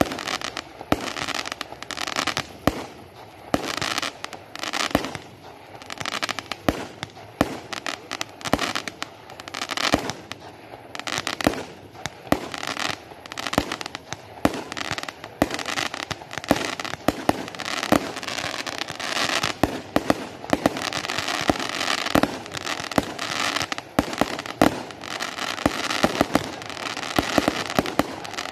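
Fireworks display: a dense, irregular run of sharp bangs from shell bursts with crackling between them, going on without a break.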